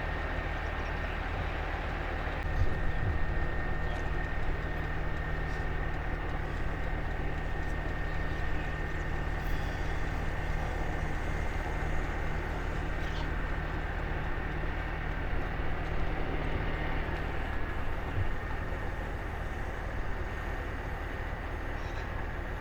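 Boat engine running steadily at constant speed: a low, even drone with a thin steady whine above it.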